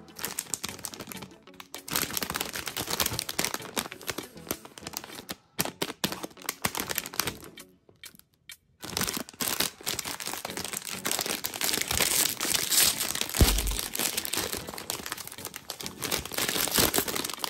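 Plastic candy packaging crinkling as hands work it, then, after a pause of about a second midway, a bag of Milky Way Minis crinkling loudly as it is handled and torn open.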